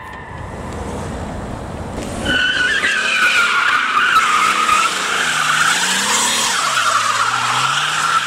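A car's rear tyres squealing as it drifts in circles under wheelspin. The loud squeal sets in about two seconds in and holds on, over the engine revving up and down.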